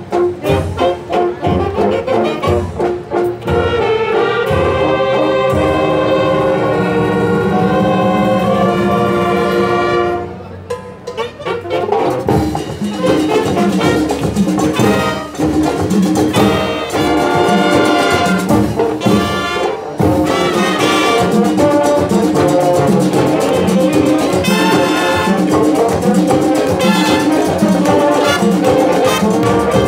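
Marching band playing loud brass music, trumpets and trombones over a steady beat. Long held brass chords in the middle give way to a short lull about ten seconds in, then the full band comes back in.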